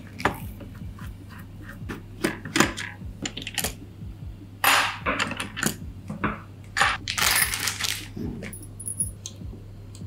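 Small metal PC mounting hardware being handled, a screwdriver and a CPU-cooler mounting bracket among it: a run of sharp clicks and clinks, with longer rustles about five and seven seconds in, over a steady low hum.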